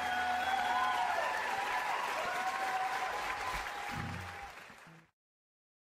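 Audience applauding while music with a gliding melody plays; both fade out about five seconds in to complete silence.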